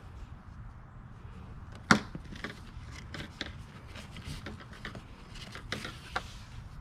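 Hands working a luggage bag's tie-down straps and plastic clips: scattered light clicks and rustling, with one sharp click about two seconds in.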